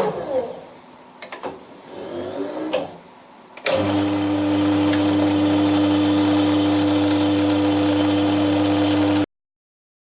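A machine-tool electric motor. At first its whine falls in pitch, then it goes quieter for a few seconds. Just under four seconds in it starts abruptly into a loud, steady running hum.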